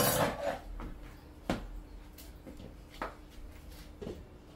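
Metal cookware clanking on a gas stove: a sharp clank at the start, then a few lighter knocks about a second and a half apart, the last as a lid is set on a saucepan near the end. A faint steady hum runs underneath.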